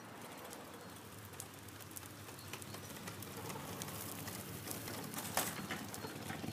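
Wheels of a homemade, motorless go-kart rolling over asphalt: a steady rolling hiss with scattered small ticks and crackles, slowly growing louder.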